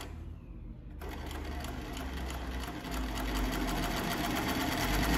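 Consew 227R-2 walking-foot cylinder-bed sewing machine stitching through layered fabric, its needle and feed clicking rapidly and evenly over a low motor hum. The stitching starts about a second in and gets louder about three seconds in.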